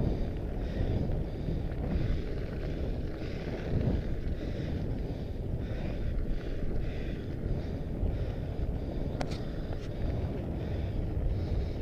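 Wind buffeting an action camera's microphone while a fat bike's knobby tyres roll over a dirt and gravel track, a steady low rumble. Two sharp clicks a little past nine seconds in.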